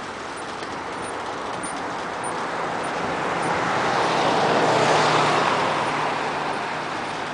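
Freight train of loaded flatcars rolling past on the track, with a steady low hum. Its rushing noise swells to a peak about five seconds in and then fades.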